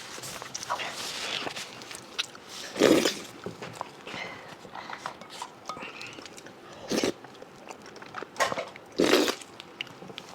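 Close-miked eating sounds: chewing and mouth noises, broken by several short, louder smacks, the loudest about three seconds in and about nine seconds in.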